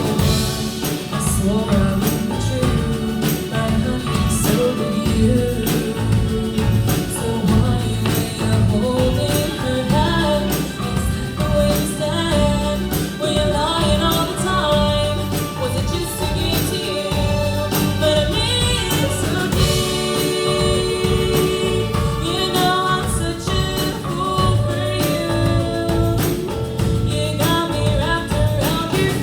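A song performed with a singing voice over instrumental accompaniment, continuing without a break.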